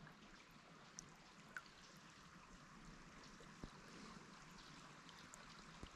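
Near silence: the faint, steady sound of a small creek's flowing water, with a few soft clicks.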